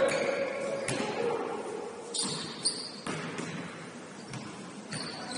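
Basketball bouncing on the court at irregular intervals, about five bounces, with a couple of short high squeaks.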